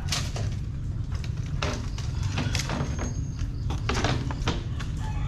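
Knocks and rattles of a plastic crate being lifted off a dial platform scale and set down, over a steady low rumble.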